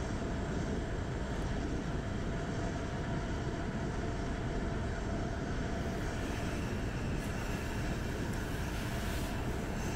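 Suzuki DR650 single-cylinder motorcycle cruising steadily at road speed, the engine's drone mixed with steady wind noise on the microphone.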